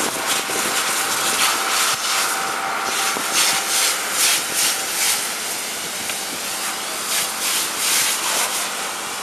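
Fire hose spraying water onto a burning car: a steady rushing hiss of spray and steam, with frequent short crackles from the fire.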